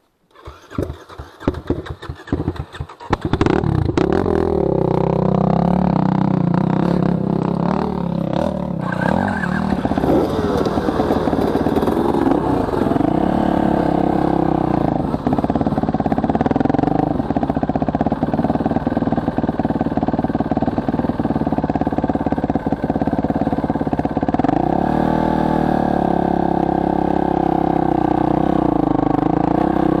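Dirt bike engine being started, irregular strokes for about three seconds before it catches, then running and revving up and down as the bike rides off along a rough trail.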